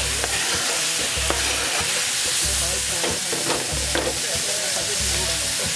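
Sliced chorizo and chopped ham sizzling in a hot stainless steel frying pan as the ham is slid in off a cutting board, with a few light clicks and knocks from the pieces and utensils.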